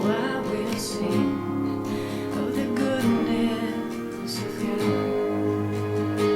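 Slow instrumental worship music carried by strummed acoustic guitar chords, about one strum a second over sustained notes.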